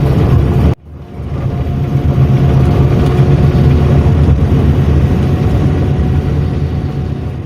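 Odong-odong's engine running steadily on the road, heard from aboard, deepest in the low range. The sound cuts out abruptly just under a second in, builds back up over about a second, and tails off near the end.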